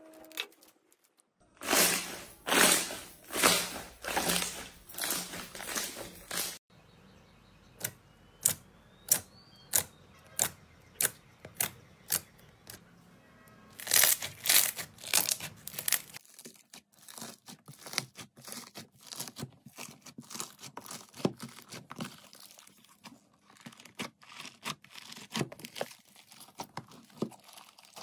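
Slime squeezed, stretched and pressed by hand, making wet clicking, popping and crackling sounds. There are loud bursts of pops at first and again about halfway, sparse single pops between them, and a dense fine crackle in the second half.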